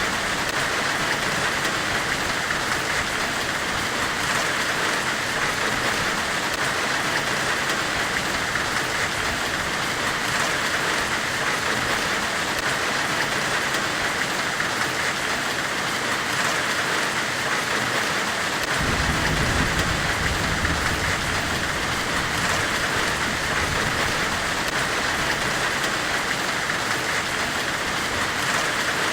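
Steady forge-weld white noise, an even hiss strongest in the upper middle range. A low rumble joins about two-thirds of the way through and carries on under the hiss.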